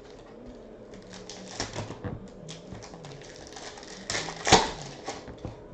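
Trading cards being handled and flipped through: a run of small clicks and rustles, with a sharper snap about four and a half seconds in.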